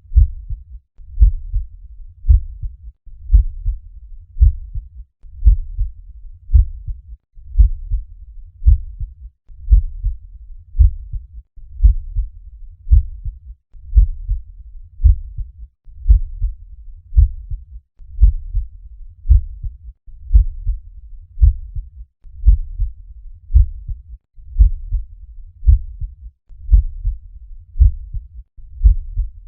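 Normal human heart sounds: the paired lub-dub of the first and second heart sounds, repeating steadily at about one beat a second, dull and low-pitched.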